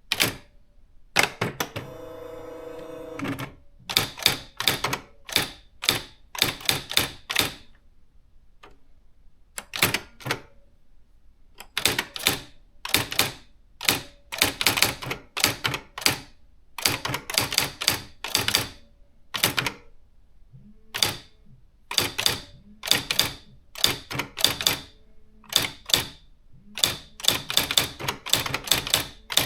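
Nakajima AX-80 electronic typewriter typing: quick runs of sharp print strikes broken by short pauses. Near the start comes a steady motor whirr lasting about two seconds.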